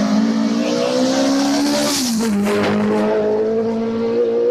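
Historic racing car engine accelerating hard, its pitch rising, dropping once at an upshift about two seconds in, then climbing again.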